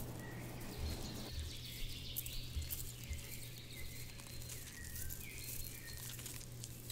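Outdoor ambience of birds chirping, with rustling and crackling of grass and leaves as a jaguar moves through the vegetation. A few soft low thuds fall in the first half, over a steady low hum.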